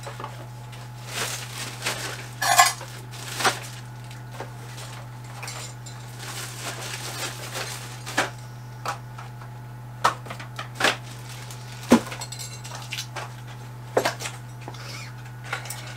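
Cutlery clinking and scraping against plates and dishes during a meal: scattered separate clinks, a second or so apart, over a steady low hum.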